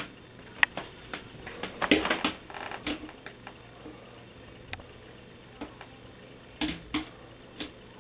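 Northern cardinal pecking at window glass: irregular sharp taps, with a quick flurry about two seconds in and a few more near the end.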